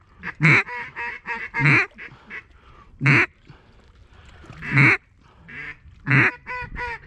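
Mallard duck call blown in loud, single hen quacks, five of them spaced a second or so apart, with softer quacks between.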